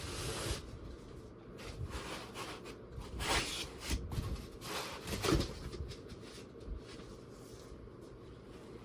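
Cardboard packaging and its contents being handled and shifted about, with irregular rustling and light knocks. There are two louder rustles, about three and a half and five and a half seconds in.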